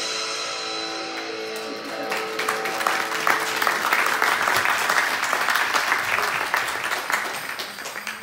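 A song's final guitar chord rings out and fades. About two seconds in, the audience breaks into applause, which dies away near the end.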